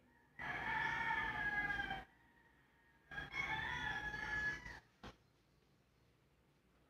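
A rooster crowing twice, each crow about a second and a half long and dropping in pitch at the end, followed by a short click.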